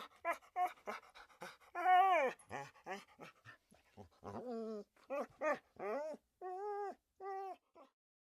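A dog whimpering and yelping: a string of short whines, each rising and then falling in pitch, with brief pauses between them.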